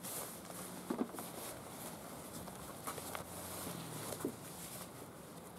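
Nylon backpack and its fabric cover rustling and swishing as they are pulled and handled, with a few soft knocks.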